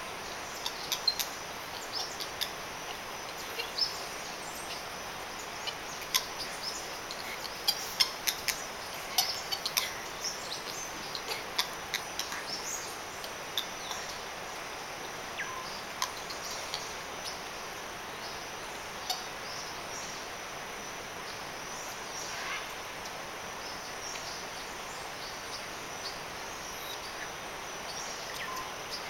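Tropical forest ambience: a steady insect drone under many short bird chirps and clicks, busiest in the first half, with a few brief calls later on.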